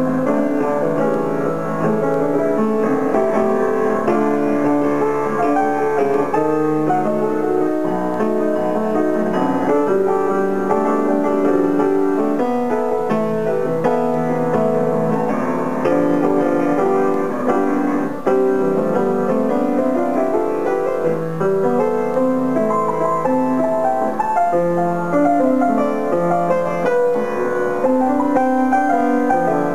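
Grand piano played solo: a continuous flow of overlapping chords and melody without a break.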